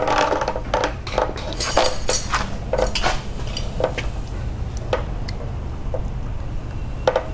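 Screwdriver and pliers clinking and scraping against a metal hose clamp on the oil cooler's coolant hose, in irregular sharp taps as the clamp is worked loose. A steady low hum runs underneath.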